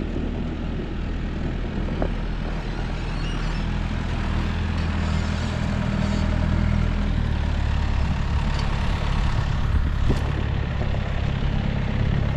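Vehicle engine running steadily, heard from inside the cab; its engine note shifts about seven seconds in.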